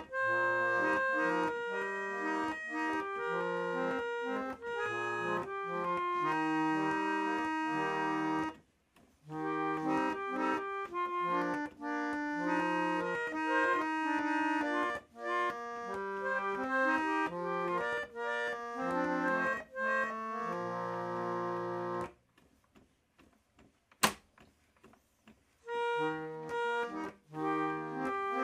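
Hand-cranked Gem roller organ, a small reed organette, playing a tune of melody over bass notes from its pinned wooden cob. The music breaks off briefly about nine seconds in, stops for a few seconds near the end with a single sharp click in the gap, then starts again.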